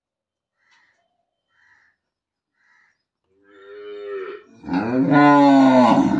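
Cow mooing twice: a shorter, higher call about three and a half seconds in, then a long, loud, lower moo that rises and falls in pitch near the end.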